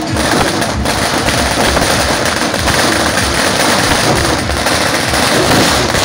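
A string of firecrackers going off in a rapid, continuous crackle.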